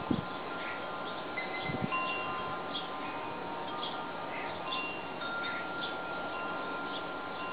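Wind chimes ringing, several metal tones sounding and dying away at overlapping times, over a steady hiss of wind. There is a low bump right at the start and another about two seconds in.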